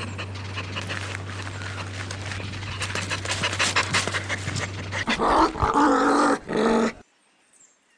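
A dog panting rapidly over a steady low hum for about five seconds, then giving two short, loud pitched calls. The sound cuts off suddenly about seven seconds in.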